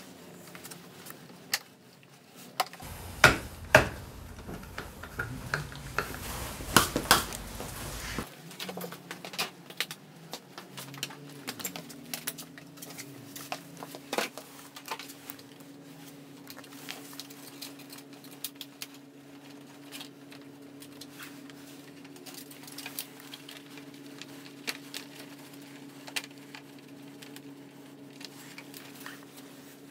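Irregular clicks, taps and knocks of hard plastic and small metal parts as a Honda PCX 125's plastic rear body cowl and tail-light housing are handled, with a louder run of knocks a few seconds in. A steady low hum starts about ten seconds in.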